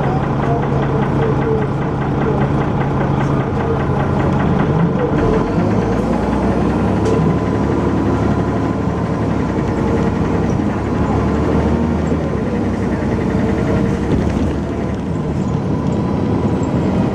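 Dennis Arrow double-decker bus engine running, heard on board, with a regular knocking tick over the first five seconds; the engine note changes about five seconds in.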